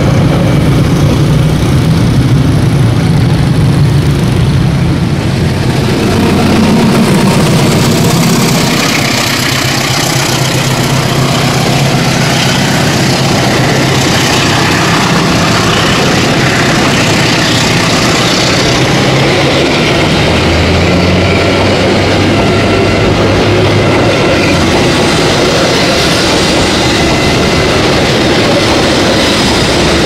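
Diesel-hauled passenger train, the KA Argo Dwipangga, running past close by, loud and steady. Its engine hum is plainest in the first several seconds, then the rolling rumble of the coach wheels on the rails takes over.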